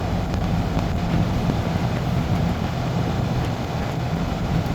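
A car driving: steady engine and road noise with a low, even hum.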